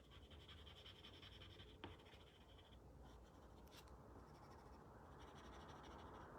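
Faint scratching of a coloured pencil shading on paper, with one light tick about two seconds in.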